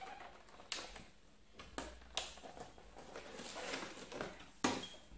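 Trimmer-kit packaging being handled and unpacked: rustling with a few sharp knocks, the loudest about four and a half seconds in.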